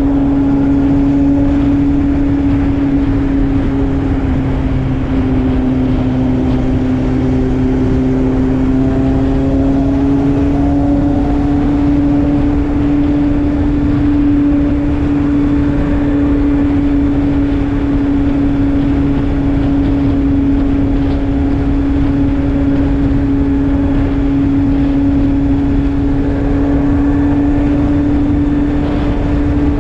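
Kawasaki Z750's inline-four engine with an aftermarket Arrow exhaust, running with a steady droning note that drifts only slightly in pitch.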